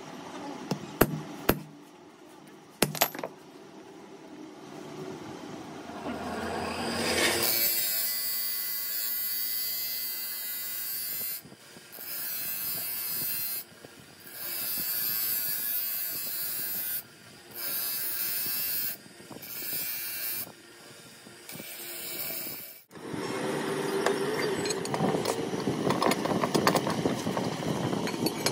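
A few sharp hammer blows on a steel drift set on an anvil block. Then an abrasive wheel grinds the steel ball stud of a truck tie rod end, a steady harsh hiss that cuts off suddenly several times. Near the end, steel parts clink and scrape as they are handled.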